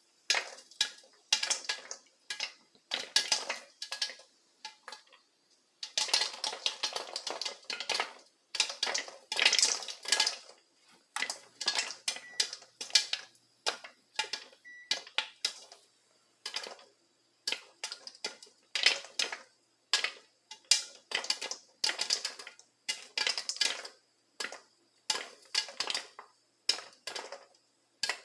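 Popcorn popping in a covered pan on the stove: a rapid, irregular run of sharp pops, busiest from about six to ten seconds in, then coming more spaced out.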